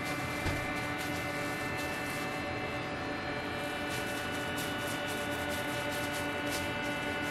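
Steady mechanical hum of kitchen equipment, made up of several held tones. Over it come a few faint clicks and a small knock about half a second in, as marinated chicken pieces are pushed onto a flat metal kebab skewer by a plastic-gloved hand.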